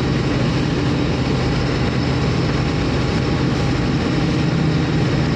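A motor vehicle's engine running steadily, a low even hum under a constant loud hiss.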